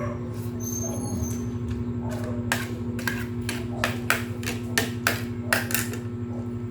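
A run of about ten sharp clicks and taps from eating at the table, coming over about three seconds near the middle, over a steady low hum.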